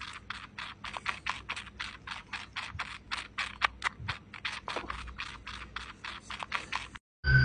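Newborn kitten suckling milk from a nipple-tipped feeding syringe: a fast, even run of small wet clicking smacks, about five a second, that stops abruptly near the end.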